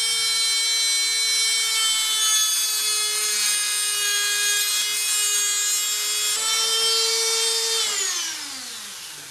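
Rotary tool's emery cut-off disc whining steadily as it grinds through 1/8-inch steel music wire. About six seconds in, the pitch rises a little, then the tool is switched off and its whine falls in pitch and fades as it spins down.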